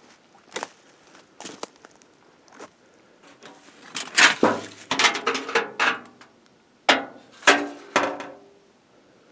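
A string of distant gunshots, each trailing off in an echo, beginning about four seconds in; the sharpest two come close together near the seven-second mark. Light footsteps are heard before them.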